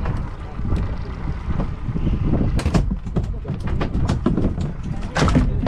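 Wind rumbling on the microphone aboard a small boat at sea, with a few sharp knocks or clicks, the clearest about halfway through and again near the end.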